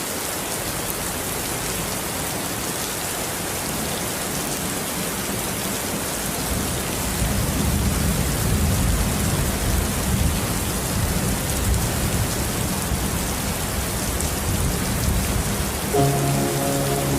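Steady rain falling. A low rumble joins it from about seven seconds in, and soft sustained music notes come in near the end.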